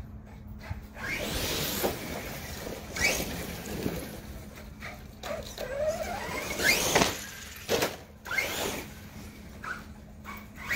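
Redcat Landslide XTE RC truck's brushless electric motor whining up and down in pitch as it accelerates and slows, with a couple of sharp knocks a little past the middle.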